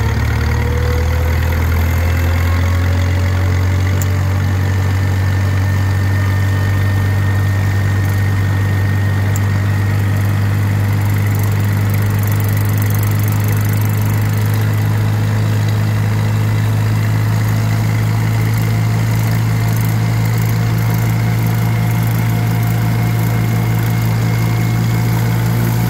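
Vintage tractor engine running steadily at road speed, heard close to its own exhaust stack: a loud, even low drone with a fine regular pulsing beat.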